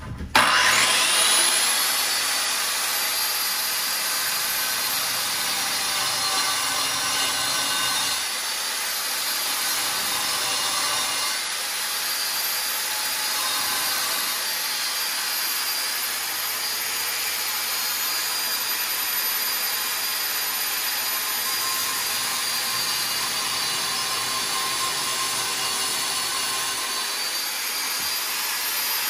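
A handheld corded power tool cutting an opening for an electrical box through a tiled wall. It starts just after the beginning with a rising whine as the motor spins up, then runs steadily under load.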